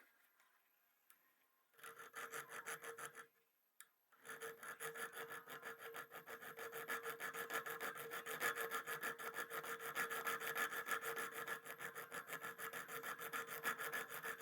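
Diamond grit file stroked rapidly back and forth across the steel cutting edge of a pair of diagonal cutter pliers held in a vise, sharpening the jaw. A short run of strokes about two seconds in, a brief stop, then steady fast filing from about four seconds on, with a faint ring from the metal.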